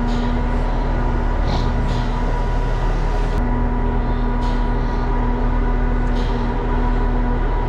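Steady mechanical drone with a constant engine-like hum and low rumble, and a few light clicks now and then.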